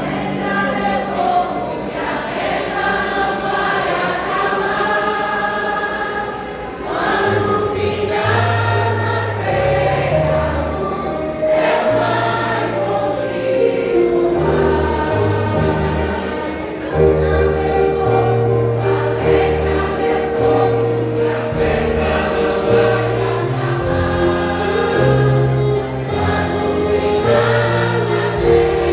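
A vocal group singing a gospel hymn in harmony with instrumental accompaniment. A low bass line comes in about seven seconds in.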